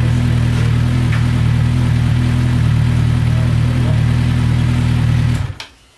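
Small engine of a home-built off-road buggy idling steadily, then switched off about five and a half seconds in, cutting out abruptly.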